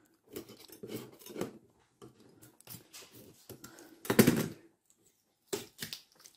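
Handling noise at a workbench: scrapes, rustles and small clicks as a taped-down wooden forming tool is pried loose with a bladed hand tool. There is a louder half-second clatter about four seconds in, as the hand tool is laid down on the table.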